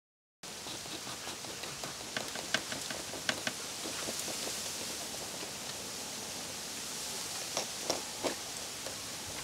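After a moment of silence, steady outdoor hiss with scattered light clicks and ticks, a few of them grouped together.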